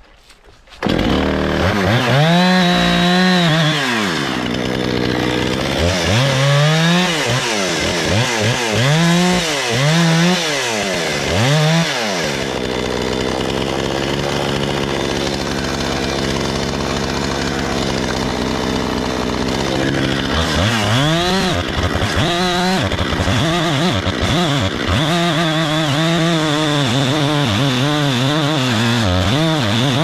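Gas chainsaw comes in loud about a second in and is revved up and back down over and over while cutting wood. In the middle it holds a steadier pitch for several seconds, then goes back to repeated revving.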